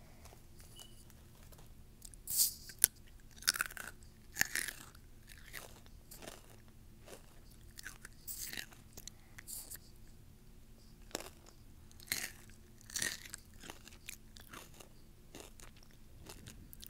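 A person biting and chewing crunchy spicy chips close to an earphone microphone: irregular sharp crunches with quieter chewing between them, the loudest bites coming about two to five seconds in and again around twelve to thirteen seconds.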